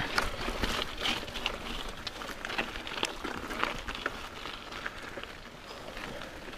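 Mountain bike rolling down a dirt and rock trail: steady tyre noise on the gravelly ground with frequent sharp clicks and rattles from the bike.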